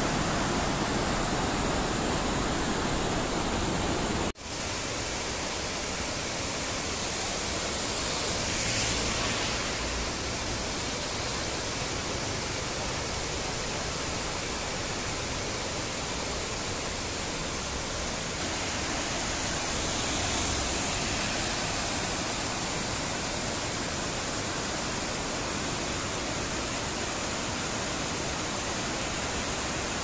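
Steady rush of a waterfall and its whitewater cascade pouring over rock, with a momentary break about four seconds in.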